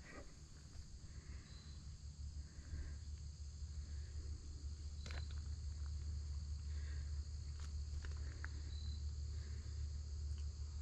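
Steady high chirring of crickets and other insects in woodland, under a low rumble that grows stronger partway through. Soft footsteps and a few sharp clicks sound as the walker moves along the trail.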